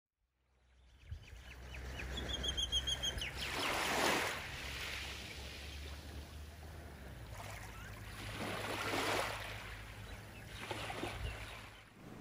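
Outdoor shore ambience fading in from silence: small waves washing onto a sandy beach in three rising-and-falling swells over a low steady rumble, with a bird chirping a quick run of high notes about two to three seconds in.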